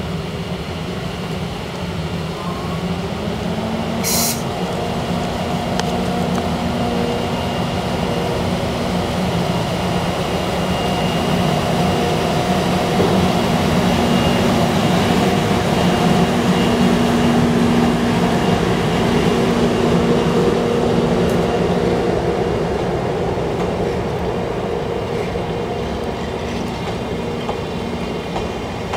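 JR East EF64 1001 DC electric locomotive hauling old-style brown passenger coaches past at low speed. It gives a steady hum with held tones over the rumble of wheels on rail, loudest in the middle as the locomotive draws level. There is one brief sharp noise about four seconds in.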